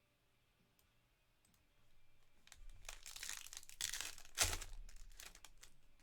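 Plastic wrapping on a trading card box or pack being torn open and crinkled. Rustling starts about two and a half seconds in, with one sharp, loudest rip about four and a half seconds in.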